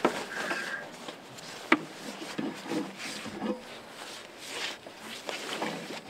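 Diver's umbilical hose being handled and paid out over a boat's metal gunwale: irregular rustling, scraping and light knocks, with one sharp click a little under two seconds in.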